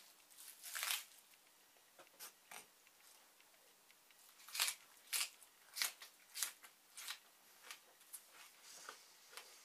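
Raw onion being chewed: a run of short, crisp crunches, closest together and loudest from about four and a half to seven seconds in.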